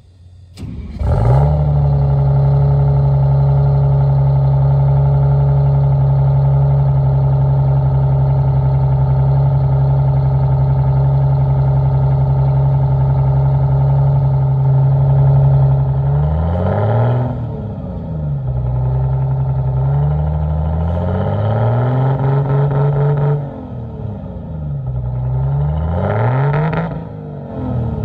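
Diesel engine of a 1989 Crown Super Coach school bus running at a steady speed, then its revs rise and fall three times in the second half.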